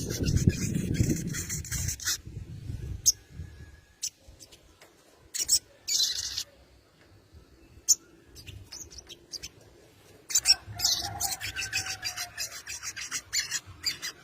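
Sogon bird giving harsh, rasping chatter in short bursts, with a long pause in the middle and a dense run of rapid strokes near the end. A low rumbling noise sits under the first couple of seconds.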